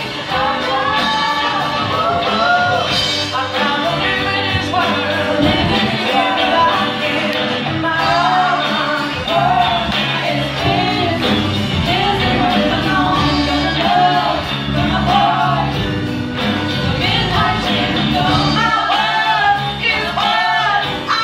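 A woman singing lead into a microphone with a live rock band behind her: drum kit, electric guitars and strings, with backing singers. The voice carries a continuous, bending melody over the band.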